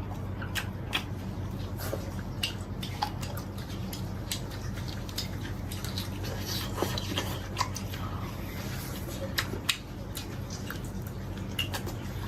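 Eating noises: scattered small clicks and wet chewing sounds, with light clinks of tableware, over a steady low hum.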